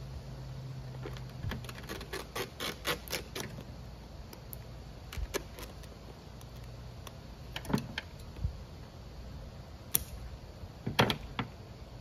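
Light clicks and crinkles of a flexible covering sheet being handled and trimmed with a utility knife at a work table. A quick run of clicks comes in the first few seconds, then a few sharper single clicks spaced out over the rest.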